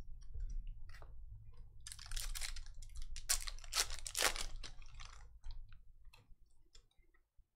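Crinkling and crackling of a clear plastic card sleeve and foil pack wrappers handled by hand, in irregular bursts, loudest from about two to four and a half seconds in, then fading.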